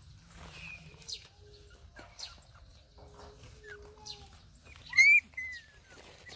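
Puppies whimpering softly in thin, high, wavering whines, with one sharp high yelp about five seconds in that trails off into a falling whine.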